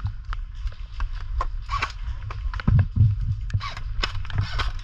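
Airsoft guns firing single shots on semi-auto: a string of sharp, irregular cracks over a steady low rumble.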